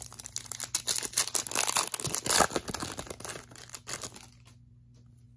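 Foil wrapper of a Donruss Optic basketball card pack being torn open and crinkled by hand, a dense crackle that is loudest about halfway and stops near the end.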